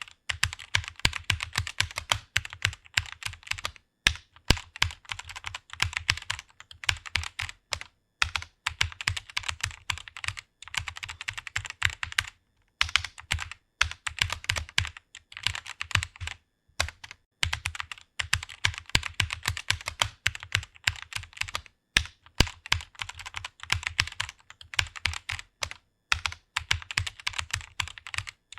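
Computer keyboard typing: rapid runs of keystrokes that stop briefly every few seconds.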